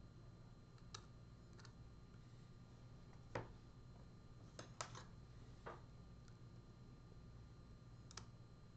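Faint, irregular clicks of a lock pick and tension wrench working the pin stacks of a Gege pExtra 6-pin lock, with the pins clicking as they are lifted and set. There are about seven clicks, and the sharpest comes about three and a half seconds in.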